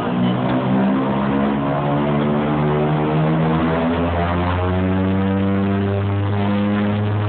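The twin Pratt & Whitney PT6A turboprops and propellers of a DHC-6 Twin Otter, heard from inside the cabin as a steady drone of several tones that drift slightly in pitch. About four seconds in, a deeper hum grows strong and holds.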